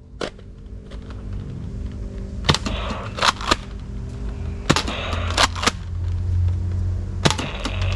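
Electronic gunfire sound effect from a toy gun: a steady low rumble with held tones, broken by about nine sharp shot-like cracks at uneven intervals.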